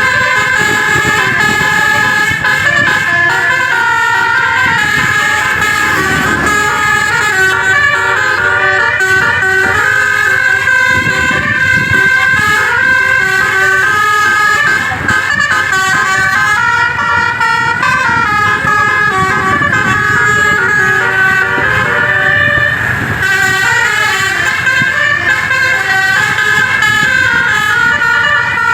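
Bus Basuri 'telolet' multi-trumpet air horn playing a continuous tune, its notes stepping up and down between several pitches, over a low rumble.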